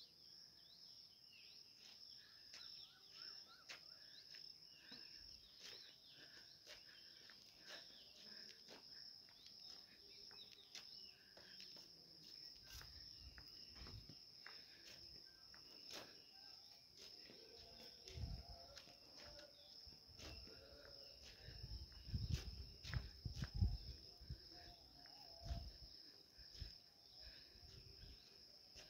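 Crickets chirring steadily in one high, even band. In the second half come low rumbling bumps on the microphone, loudest a little past the middle.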